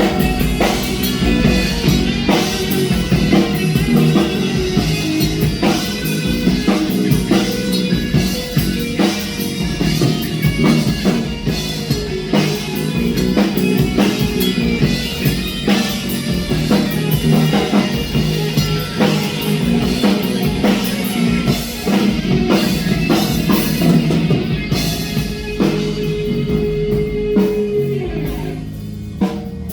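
Live rock band playing with drum kit and guitar during a sound check, the drums hitting steadily under the guitar.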